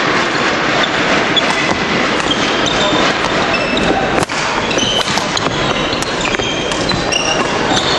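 Badminton rally on a wooden hall floor: sharp racket strikes on the shuttlecock and short high-pitched shoe squeaks as the players lunge and jump, over steady crowd chatter echoing in the hall.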